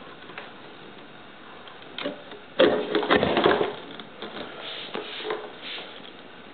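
Handling noise from a prop proton pack and its wand being moved about: a couple of knocks about two seconds in, then a dense clatter of knocks and rattling for about a second, then a few softer taps.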